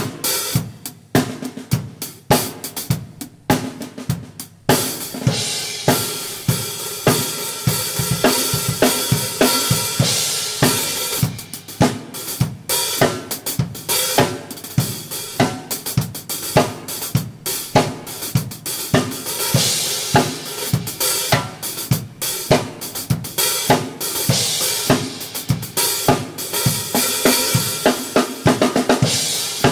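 Acoustic drum kit played on its own, the drum part of a gospel worship song: kick, snare and toms with Sabian HHX cymbals and hi-hat in a steady groove. The first few seconds are separate hits with short gaps; about four and a half seconds in, the cymbals start ringing continuously over the beat.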